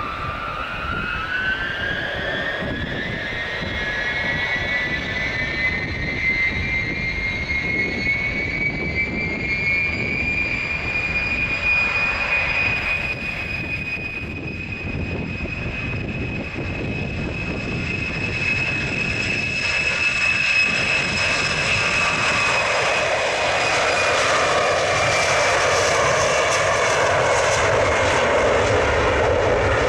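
Tupolev Tu-154M's three rear-mounted Soloviev D-30KU-154 turbofans spooling up for takeoff. A whine rises in pitch over the first ten seconds or so and then holds steady. A deeper jet roar builds over the last several seconds as the takeoff roll gets under way.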